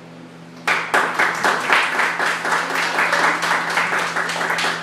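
Applause from a small audience, breaking out suddenly about a second in and continuing as fast, dense clapping.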